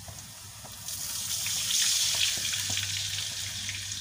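Water poured into a hot wok of sautéed aromatics in oil, hissing and sizzling as it hits the hot pan. The sizzle swells about a second in, then settles to a steadier bubbling hiss.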